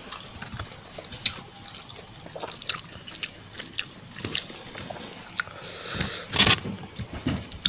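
Close-up mouth sounds of eating chewy mushrooms and spicy chicken curry: scattered wet chewing and lip smacks, with a louder wet slurp about six seconds in.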